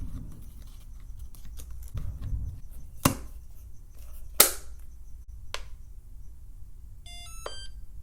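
A small plastic label maker being handled and set up, with three sharp plastic clicks spread over a few seconds. Near the end comes a quick run of short electronic beeps stepping in pitch, like a power-on chime.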